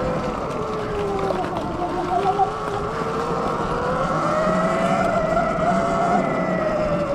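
Sur Ron Light Bee X electric dirt bike's motor whining while riding, its pitch dropping as the bike slows about two seconds in, then rising as it speeds up again, over a steady rush of wind and trail noise.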